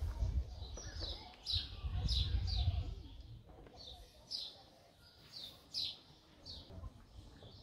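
A songbird chirping over and over in short, high notes that fall in pitch, about two a second. A low rumble of wind or handling noise sits under the first few seconds.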